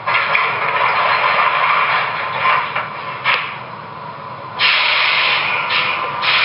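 MTH Premier O-gauge R40 subway model's onboard sound system playing subway train sounds through its small speaker as the train rolls slowly. About four and a half seconds in, a loud air-brake hiss starts suddenly, breaks off briefly and resumes.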